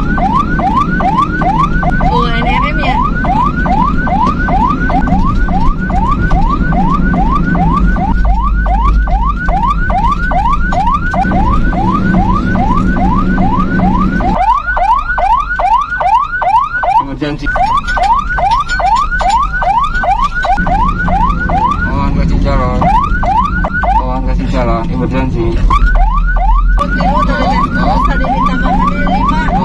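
Ambulance siren in a fast rising yelp, about three sweeps a second, with a few brief breaks. Under it is the low rumble of the vehicle's engine and road noise.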